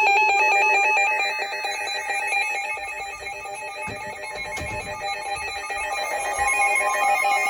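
Electronic Emergency Alert System alert tones: a fast stepping, chirping tone pattern that gives way near the end to a steadier alarm tone.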